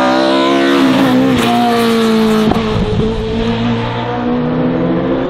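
Hillclimb race car engine at full throttle passing close by, its pitch falling as it goes past. A sharp crack comes about two and a half seconds in, after which the engine carries on a little more quietly.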